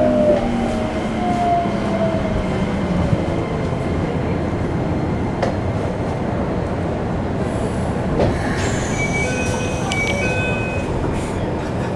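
Keikyu New 1000 series train's Toyo IGBT-VVVF inverter whining down in pitch under braking during the first few seconds. Then steady wheel-and-rail running noise under the floor, with some wheel squeal, as the train slows for a station. Several short high tones sound near the end.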